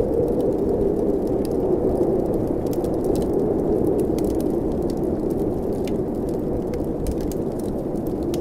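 Steady blizzard wind with a low, howling rush, mixed with the crackling and snapping of a wood fire in a fireplace, many small pops scattered throughout.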